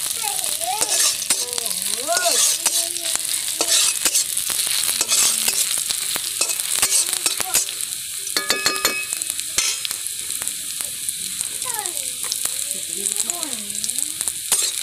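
Sliced onions sizzling in hot oil in a metal wok, with a metal spatula stirring and scraping against the pan in frequent sharp clicks. This is the onion base being fried for a curry.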